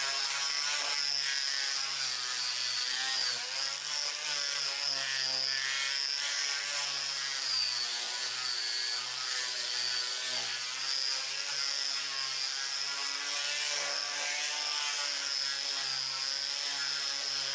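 DeWalt angle grinder running with a sanding disc pressed against a moss-stained wooden board, sanding off the surface. A steady high whine, its pitch wavering slightly as the disc is worked over the wood.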